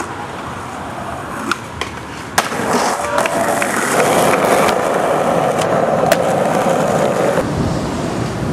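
Skateboard wheels rolling on hard ground, with several sharp clacks of the board. About four seconds in, a louder steady noise sets in and lasts about three seconds.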